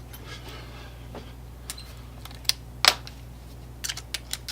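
A few sharp, scattered clicks and taps of small metal parts as a screwdriver bit is fitted into a screw gun, over a steady low hum.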